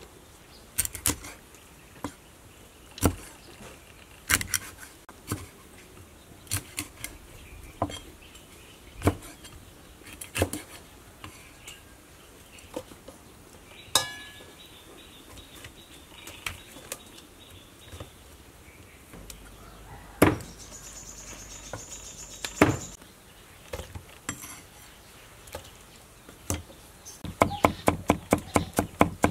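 Large kitchen knife striking a wooden chopping block: separate single cuts every second or so as raw fish is cut into pieces. About 27 s in, it changes to fast, even chopping at about four or five strokes a second as something is minced.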